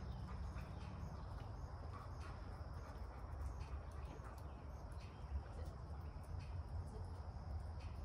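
Quiet background ambience: a steady low rumble with a faint, steady high-pitched hum and a few soft ticks.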